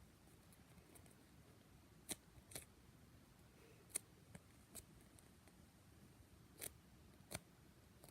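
Foam squishy toy being squeezed and handled close to the microphone, giving a few faint, short, sharp crackles at irregular intervals over near silence.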